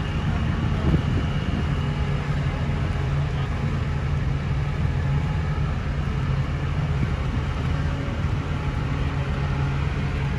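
An engine idling steadily: a low, even hum that holds one pitch throughout.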